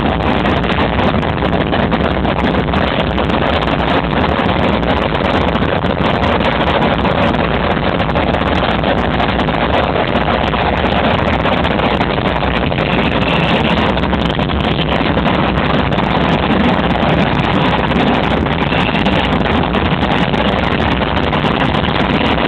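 Loud DJ dance music from a festival sound system, recorded on a phone whose microphone is overloaded by the bass, so it comes through as a steady, distorted wash of sound.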